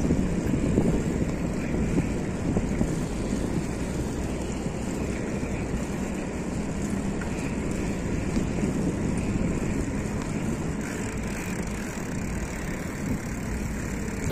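Wind buffeting the microphone while riding a bicycle: a steady low rushing noise that does not let up.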